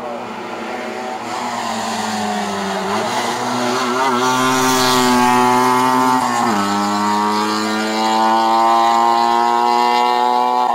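Rally car engine at full throttle, its pitch climbing steadily as it accelerates through a gear, dropping sharply at an upshift about six and a half seconds in, then climbing again. It grows louder over the first half.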